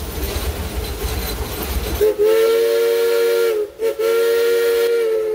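Steam locomotive rolling along with a low rumble of wheels on track, then its whistle blows from about two seconds in, several notes sounding together: a short blast, a brief break, then a longer blast, loud from inside the cab.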